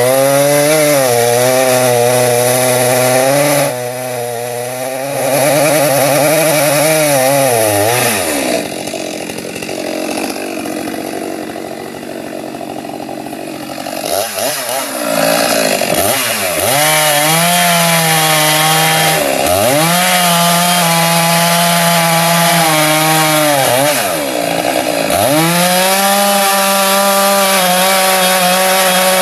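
Two-stroke chainsaw cutting into the base of a standing tree, running at full throttle with its pitch sagging under load. It drops back for about five seconds in the middle, then revs up and eases off several more times.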